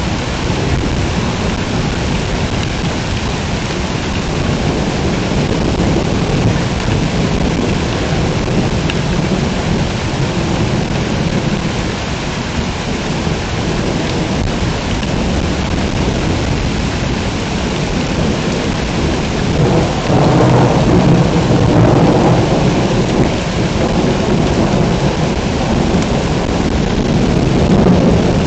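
Heavy rain pouring steadily, with thunder rumbling under it. A louder, longer roll of thunder swells up about two-thirds of the way through and rises again near the end.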